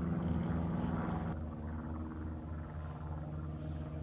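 Light single-engine propeller planes droning overhead: a steady piston-engine hum with a pulsing low note. The drone changes abruptly about a second in, as one plane's sound gives way to another's.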